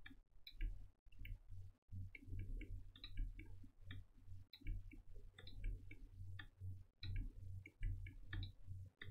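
Faint, irregular clicks of a computer mouse and keyboard, one to three a second, over a low hum.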